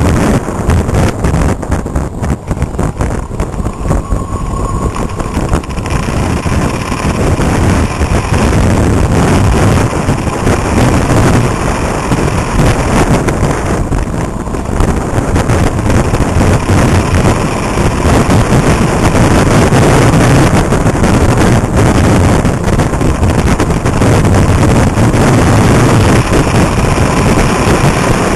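Wind buffeting the microphone of a moped under way, with engine and road noise mixed underneath. Uneven at first, it turns louder and steadier after about eight seconds.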